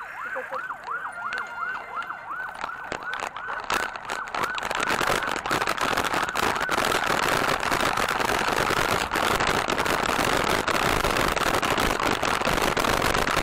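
An electronic siren yelping in quick rising-and-falling wails, about three a second, fading out after four or five seconds. A steady rush of wind on the microphone and the rattling of a bike-mounted action camera over a stony dirt track then take over and grow louder.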